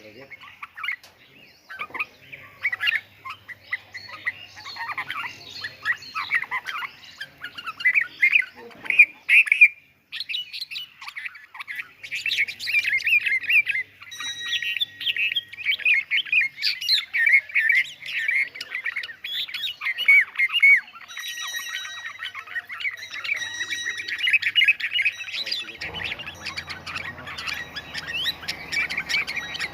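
Several birds squawking and chirping in a dense, busy chatter of short calls, with a brief lull about a third of the way in. Near the end a steady low hum joins in.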